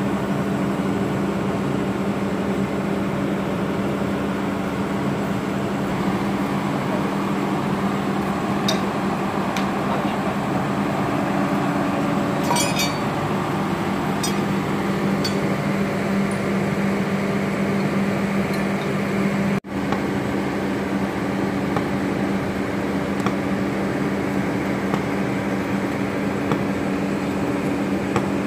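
A steady low mechanical hum, with a few light metal clinks around the middle as the axle's wet-brake friction discs and steel plates are handled.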